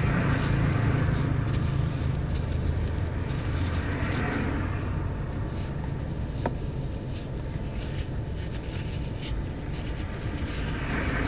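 Steady low rumble in the background, heaviest in the first half, with faint clicks and rustling as a cloth-taped wiring harness is worked loose from the steel dashboard cross-bar.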